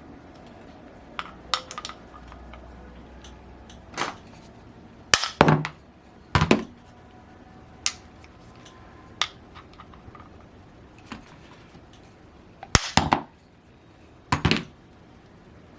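Metal tools and model-engine parts clinking and knocking against each other on a workbench: a handful of sharp, separate metallic knocks at uneven intervals, the loudest cluster about five seconds in and another near thirteen seconds.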